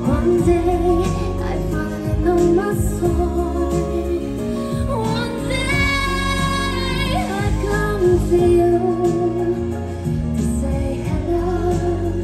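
Female pop singer singing live into a handheld microphone over a backing track, heard through the concert sound system from within the audience. About halfway through she holds a long, wavering high note.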